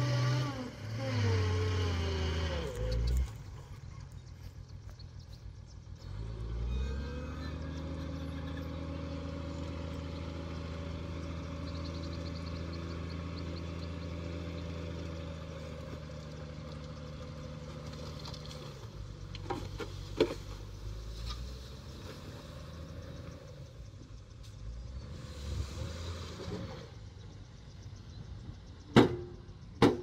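Dump truck's diesel engine revving as it manoeuvres, then held at a steady note while the bed tips and the soil slides out. A few sharp knocks follow near the end.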